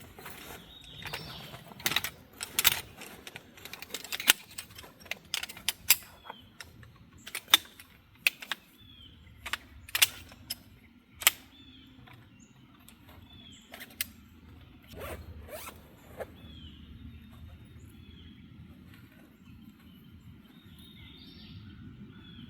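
Camping gear being handled: a run of sharp clicks, snaps and zipping sounds over the first half, then only scattered ones. A bird repeats a short falling call every second or two throughout.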